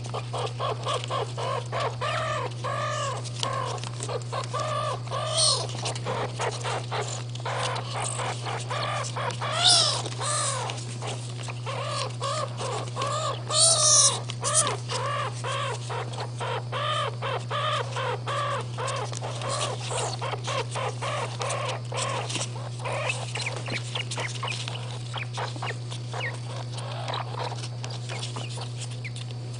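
Baby striped skunks chirping, a rapid run of short arched calls several a second, with a louder, higher squeal about ten seconds in. The calls thin out in the last several seconds. A steady low hum runs underneath.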